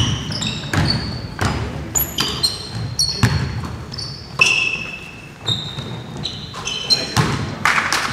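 Basketball bouncing on a hardwood gym floor in irregular thuds, mixed with short high-pitched squeaks of sneakers on the court.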